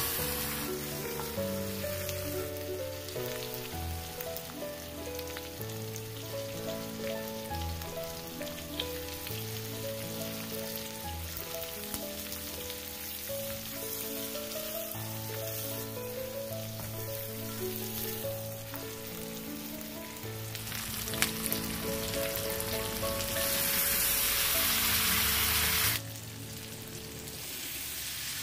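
Chicken feet frying with a steady sizzle in melted butter in a wok, under background music. The sizzle swells louder for a couple of seconds near the end, then cuts off suddenly.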